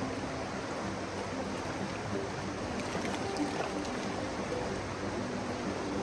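Shallow river water rushing steadily over stones.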